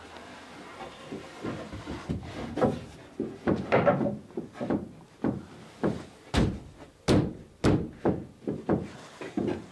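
Wooden centreplate case side being fitted down onto the hog of a wooden dinghy: a run of irregular wooden knocks and thumps as the board is shifted and pressed into place. The knocks grow sharper and louder in the second half.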